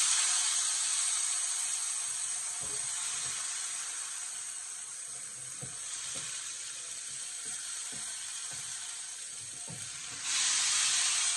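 Diced tomato and other chopped vegetables frying in hot oil in a stainless steel pot: a dense sizzle that slowly eases, then flares up louder about ten seconds in as more is added. A few soft knocks of the spatula on the cutting board come through it.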